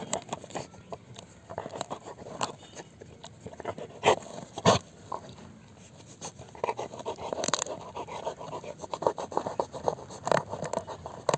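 A dog gnawing and scraping at a hard-shelled stone apple (wood apple), with irregular clicks of teeth on the shell and a few sharper cracking knocks, about four and a half and seven and a half seconds in.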